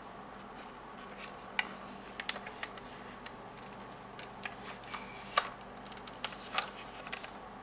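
Faint handling noises of a toy car being turned over in the hands: scattered small clicks and taps of fingers against the model, the sharpest tap about five seconds in.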